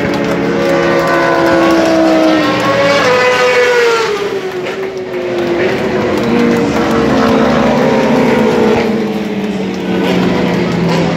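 Racing motorcycle engines running at high revs, several overlapping, their pitch sliding slowly down as they pass by.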